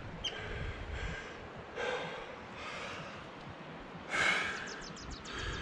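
A climber breathing hard with effort, the loudest breaths about two seconds and about four seconds in, followed by a quick run of light clicks.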